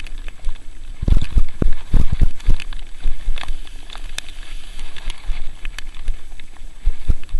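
Dog-drawn training kart rolling over a rough trail: irregular heavy thumps and rattling clicks over a steady rush, the heaviest knocks about one to two and a half seconds in.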